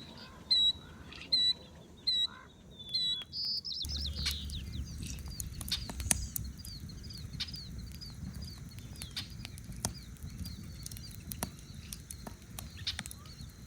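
A bird repeats a short, loud call about once every 0.7 seconds. About four seconds in, the sound changes abruptly to many small, quick bird chirps over a low, steady background hiss, with scattered clicks.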